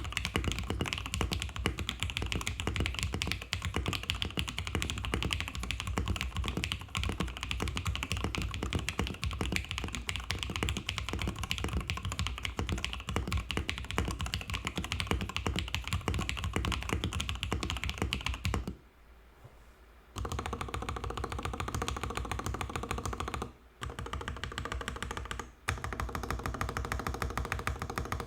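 Fast, continuous typing on a PLA75 custom mechanical keyboard with an FR4 plate, Krytox-lubed FFFF linear switches and IFK Musubi keycaps. The keypresses come as a dense stream of clicks. The typing stops for about a second and a half roughly two-thirds of the way in, then stops briefly twice more near the end.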